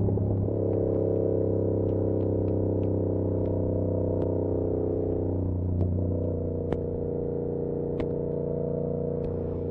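2022 Yamaha R7's 689 cc parallel-twin engine running through an SC-Project CR-T exhaust, cruising at steady revs and heard from inside a backpack. The engine note shifts briefly about half a second in and again around six seconds. Scattered sharp ticks come from the bag's straps slapping against the bag.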